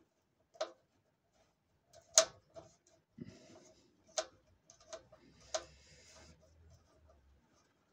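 Scattered sharp clicks and knocks as a roller-shutter tie strap's metal hook is worked into place on the shutter roller. Four louder clicks come one to two seconds apart, the loudest about two seconds in, with fainter handling clicks between.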